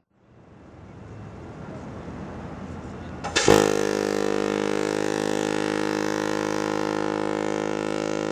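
A ship's tyfon air horn sounds one long, steady, deep blast with many overtones, starting abruptly about three and a half seconds in and lasting about five seconds. Before it there is only a low background noise that slowly grows.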